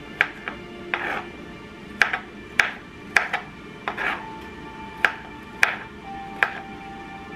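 Chef's knife chopping garlic cloves on a wooden cutting board: about ten sharp knocks of the blade hitting the board at an uneven pace, roughly one or two a second, over soft background music.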